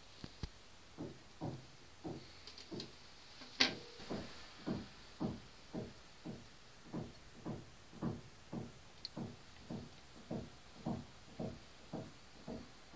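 Earphone driven by a solar panel that picks up an LED's light pulses, reproducing a radio broadcast as evenly spaced low thumps about twice a second, each falling slightly in pitch. A sharper click about three and a half seconds in is the loudest sound.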